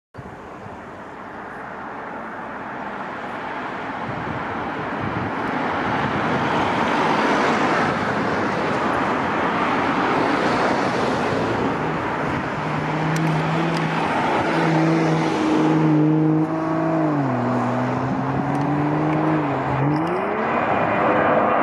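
Boeing 737-800's twin CFM56-7B turbofans at take-off power: a broad jet roar that grows steadily louder over the first several seconds as the airliner rolls and lifts off, then holds loud. In the second half a low tone sits under the roar and drops in pitch twice.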